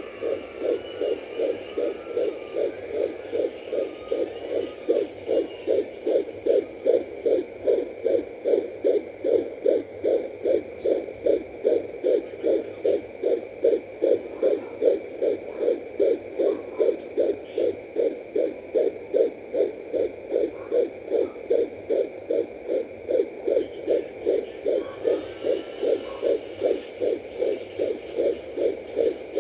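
Fetal heartbeat picked up by a home fetal Doppler at 14 weeks 5 days: a fast, even pulse of about 150 beats a minute, with a faint steady high tone from the device underneath.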